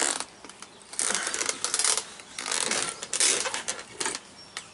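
Metal parts of a truck driveshaft's U-joint and slip yoke scraping and clanking as they are worked loose by hand, in several short uneven bouts.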